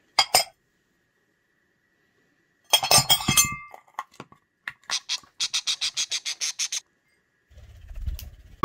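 Small parrot working a plastic lid off a ceramic bowl: a clattering clink with a brief ring about three seconds in, then a run of quick, even taps, about six a second, for two seconds.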